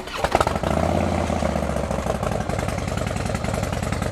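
Harley-Davidson Dyna Low Rider S V-twin cranking and firing up about a third of a second in. It runs a little faster for about a second, then settles into a steady, pulsing idle.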